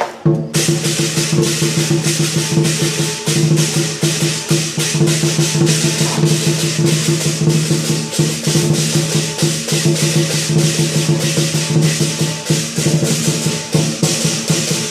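Lion dance percussion: a big drum beating with clashing cymbals several times a second, over a steady ringing tone from the gong.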